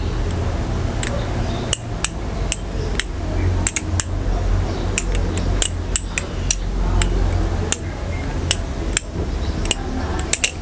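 Balisong (butterfly knife) being flipped through loops, its metal handles clicking and clacking against the blade irregularly, about one or two clicks a second and sometimes in quick pairs, over a steady low hum.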